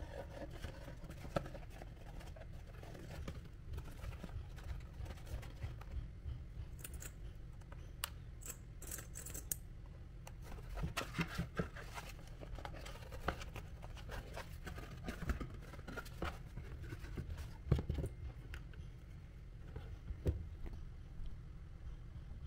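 Cardboard and paper being cut and handled: scattered snips, scrapes and light taps, with a quick run of sharp snips about seven to nine seconds in. A low steady hum lies underneath.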